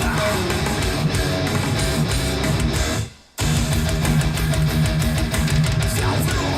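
Guitar-driven rock or metal music played through S90E loudspeakers fitted with Alphard midrange and tweeter drivers. The music cuts out briefly a little before halfway, then resumes.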